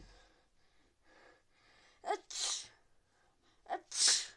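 A person with a head cold sneezing twice, about a second and a half apart, each a short catch of breath followed by an explosive blast. Soft breathing comes before the sneezes.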